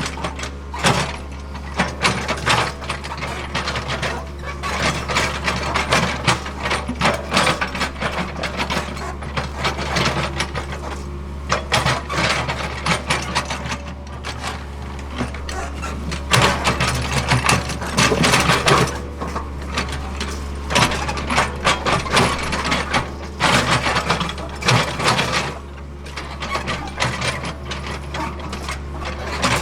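Hitachi ZAXIS75UR compact excavator at work: its diesel engine runs with a steady drone under irregular clanking and scraping from the working machine.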